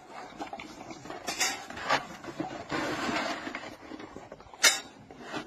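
Metal dog bowls clinking and clattering while dry dog food is poured into them, with a rattling pour about halfway through and a sharp clink near the end as the loudest sound.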